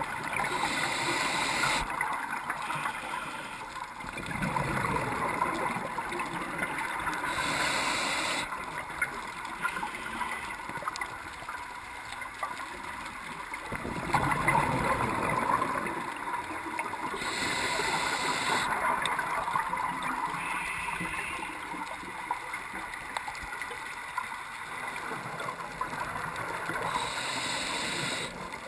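Underwater sound through a GoPro's housing: scuba divers breathing through their regulators, a steady gurgling hiss. Four louder rushes of exhaled bubbles come about nine seconds apart.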